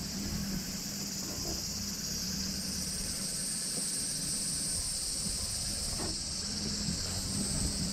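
Steady high-pitched chorus of insects singing in the grass, with a second, higher strand of song joining about two and a half seconds in. A faint low hum runs underneath.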